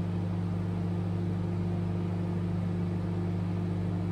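LG convection microwave oven running, a steady low hum, while it heats chocolate compound to melt it.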